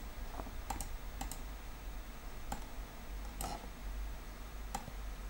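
Computer mouse button clicking: several short, sharp clicks spaced irregularly, some in quick pairs, over a low steady hum.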